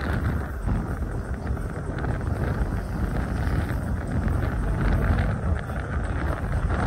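Wind rumbling on the microphone over outdoor ambience, steady throughout.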